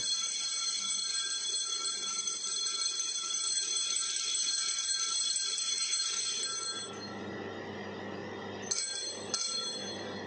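Consecration bell rung without a break during the elevation of the host, a bright high ringing that stops about seven seconds in; two short rings follow near the end as the host is reverenced.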